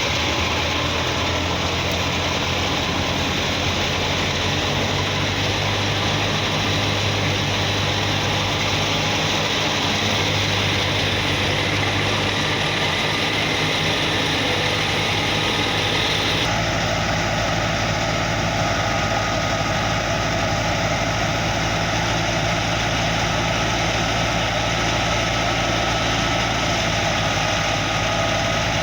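Engine-driven wheat thresher running steadily, a constant low mechanical drone with an even hum. The sound shifts abruptly a little past halfway through.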